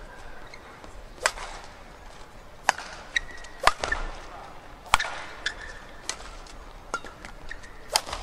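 Badminton rally: rackets striking the shuttlecock with sharp cracks, roughly one every one to one and a half seconds. Between hits come short squeaks of court shoes on the floor.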